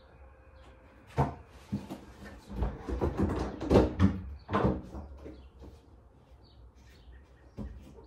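Irregular household knocks and clatter, as of doors or objects being handled: one sharp bang about a second in, then a busy run of bumps and bangs for about two seconds, and a last knock near the end.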